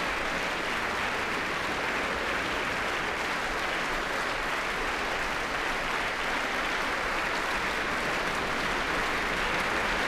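Large audience in a concert hall applauding, a dense, steady clapping that holds at an even level throughout.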